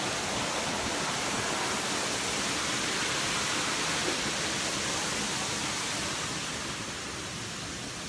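Steady rush of falling water from a waterfall or rapids, getting slightly quieter near the end.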